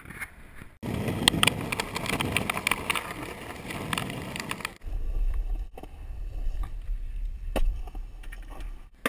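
Skateboard wheels rolling fast over rough asphalt, a dense rumble with small clatters from the board, which cuts off suddenly about five seconds in. Then a lower, steadier rumble of wheels carving a concrete skatepark bowl, with wind buffeting the microphone.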